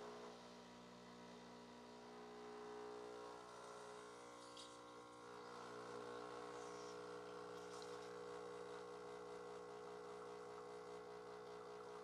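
Faint, steady hum of a Breville Barista Touch Impress espresso machine's pump pulling a double shot of espresso.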